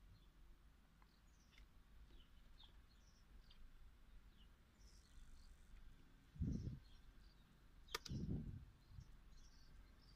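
Near silence, with faint, scattered bird chirps. Two dull low thumps come about six and a half and eight seconds in, with a sharp click just before the second.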